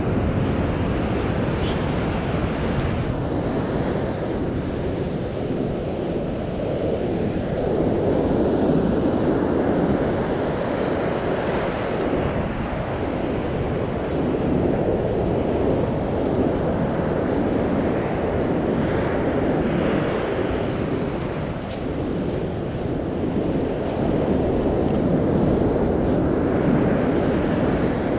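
Ocean surf breaking on a sandy beach, a steady wash that swells and eases, with wind buffeting the microphone.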